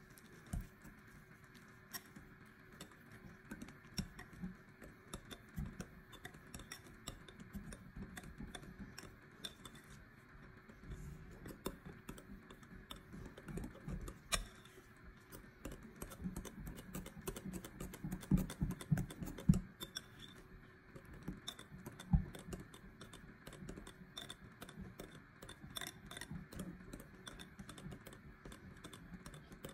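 Wire balloon whisk beating cream by hand in a glass bowl, its wires clicking and tapping rapidly against the glass. There are a few louder knocks about two thirds of the way through.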